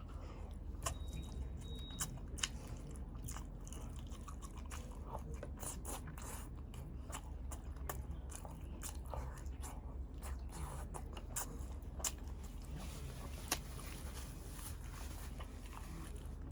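Close-up mouth sounds of a person chewing balut, the duck embryo in its egg, with many sharp crunches and wet clicks scattered throughout. A steady low hum runs underneath.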